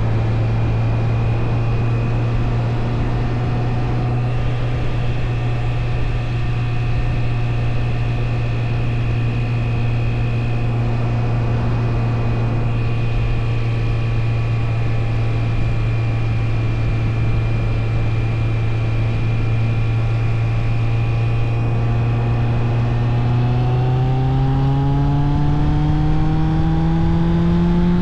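Suzuki GSF 600 Bandit's inline four-cylinder engine running at a steady speed under way, its pitch rising over the last few seconds as the bike accelerates.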